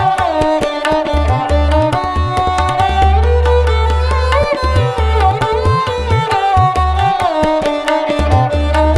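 Indian-style instrumental background music: tabla strokes with upward-gliding bass notes, under a melodic line that bends between notes over a steady low drone.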